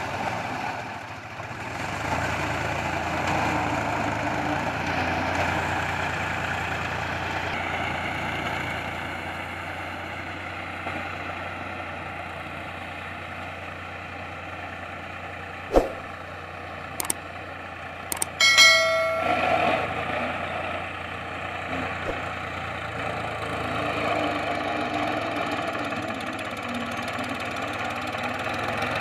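Powertrac 445DS tractor's diesel engine running steadily under load while it drives a rotavator through a flooded paddy field, growing fainter and louder again as the tractor moves. A sharp click comes about halfway through, and a short pitched sound, the loudest moment, a couple of seconds later.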